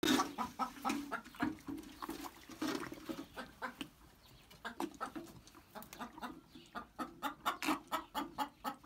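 Calf sucking and slurping milk from a metal bucket around a person's fingers: a run of quick wet smacks and gulps, coming faster in the second half.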